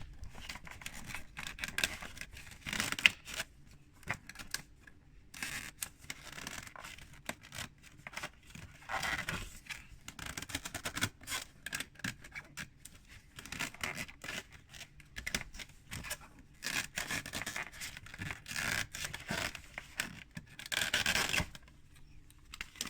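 Doll packaging being handled as contents are taken out of the box: irregular scratching, rubbing and clicking, with a louder rustle near the end.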